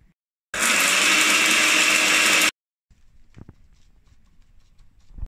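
A kitchen blender runs at full speed for about two seconds, starting and stopping abruptly. It is followed by faint taps and rustling as a gloved hand pats dry koji rice onto a raw steak.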